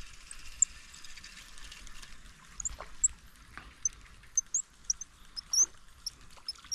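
Small birds chirping in quick, irregular short high notes, with a few soft knocks or rustles in between.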